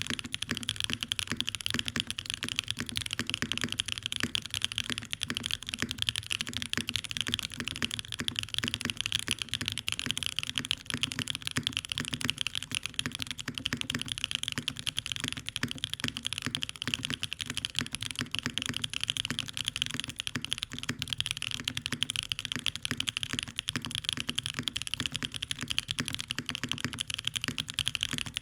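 Steady, fast typing on a Mode Envoy custom mechanical keyboard with Chosfox Hanami Dango switches on a carbon-fibre plate: a dense, unbroken stream of keystroke clacks.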